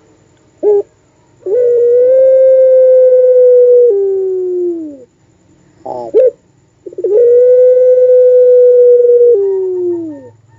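Puter pelung, a long-voiced domestic collared dove, giving two long drawn-out coos. Each coo follows a short note, holds a steady pitch for about two and a half seconds, then drops and slides down. This is the howling 'wolf' call the variety is kept for.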